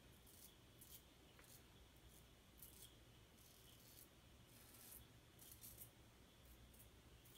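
Merkur 42 double-edge safety razor cutting stubble in short strokes around the mustache: about ten faint, brief, irregularly spaced scrapes of the blade through whiskers.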